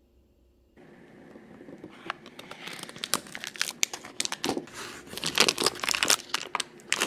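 Paper and foil food wrappers crinkling and tearing as a stick of butter and a block of cream cheese are peeled open by hand, a dense crackly rustle that starts about a second in and grows louder.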